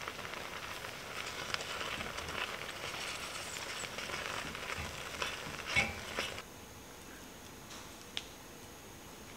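Oatmeal porridge sizzling and bubbling in a small cast-iron pan on a gas burner while it is stirred with a spoon, with a couple of louder spoon knocks about six seconds in. After six and a half seconds the sound drops suddenly to quiet room tone with a single click.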